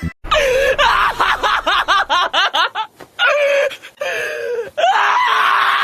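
Dog screaming in distress while held for a veterinary exam: a quick run of high yelps, two longer cries, then one long unbroken scream starting near the end.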